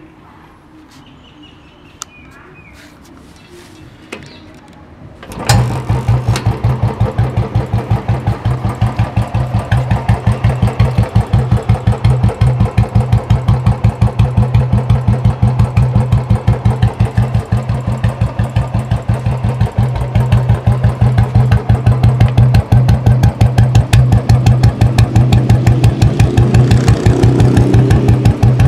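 Royal Enfield Classic 350 BS4 twin-spark single-cylinder engine exhausting through a round-bend aftermarket silencer. A couple of small clicks come as the ignition is switched on, then it is self-started about five seconds in. It catches at once and settles into a steady idle: an even beat of exhaust pulses, the 'dug dug' thump.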